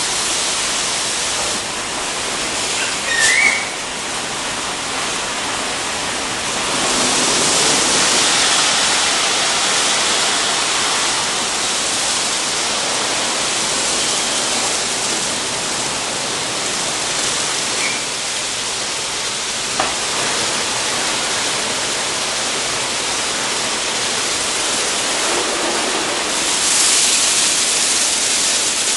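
WashTec SoftWash rollover car wash at work: a steady hiss of water spray and spinning brushes over the car, swelling louder about a quarter of the way in and again near the end. There is a brief squeak about three seconds in and a single sharp click about two-thirds through.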